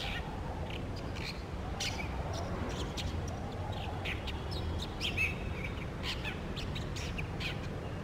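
A shrike singing: short chirps and call notes at irregular intervals, with a louder, longer note about five seconds in, over a steady low rumble.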